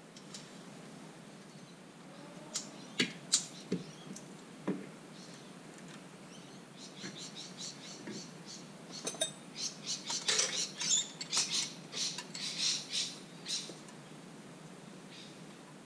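A few sharp metallic clinks of hand tools, then a socket ratchet wrench clicking in quick runs for several seconds as a bolt is worked, starting about seven seconds in.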